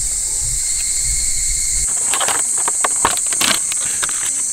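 Steady high-pitched insect chorus. From about two seconds in it is joined by a run of sharp crinkling clicks from a clear plastic takeaway food pack as fried chicken is picked out of it.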